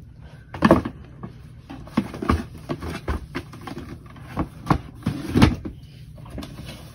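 Cardboard shoeboxes being handled: a sneaker put into its box, the lid closed, and boxes shifted on a stack. This makes a string of knocks and thumps, loudest about half a second in and again about five and a half seconds in.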